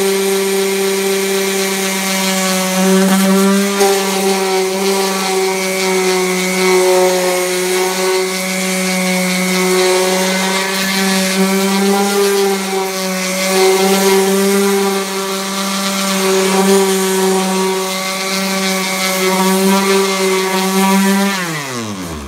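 Bauer random orbital sander running steadily against plywood, with a steady humming pitch. Near the end it is switched off and the motor winds down, its pitch falling away.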